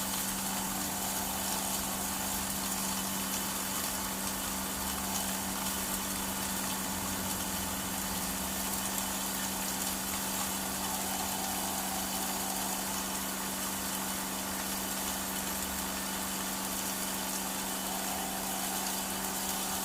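Homemade pepper-grinding machine driven by a small engine, its throttle partly opened, running steadily with a constant hum while it grinds peppercorns into powder.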